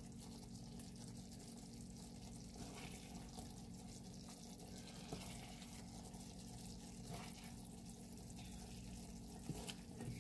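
Faint kitchen sounds: a wooden spoon scraping and tapping lightly in a pan of curry as it is spooned onto a plate of rice, with a few soft knocks, over a low steady hum.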